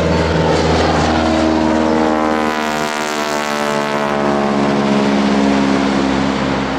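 A Boeing Stearman biplane's radial engine and propeller droning loudly overhead during a display flight, with the pitch dropping steadily through the middle of the pass.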